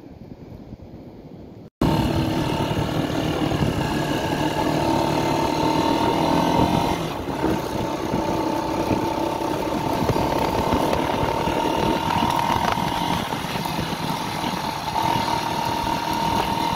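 Small motorcycle engine running steadily as it is ridden at cruising speed on a dirt track, heard from the rider's position. It starts abruptly about two seconds in, after a brief stretch of soft wind.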